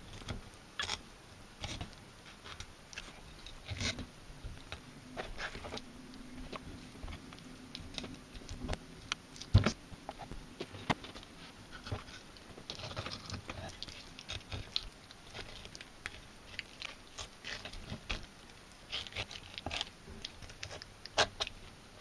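Kitchen knife filleting a small char on a cutting board: irregular soft clicks, taps and scrapes as the blade works along the backbone and separates the fillets.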